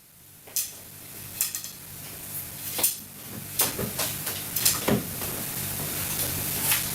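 Kitchen clatter: utensils knocking against pots and dishes, a sharp knock every second or so, over a steady hiss that grows a little louder toward the end.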